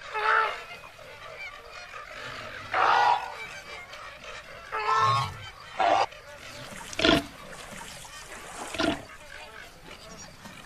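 Flamingos honking: about six separate short, goose-like calls, a second or two apart.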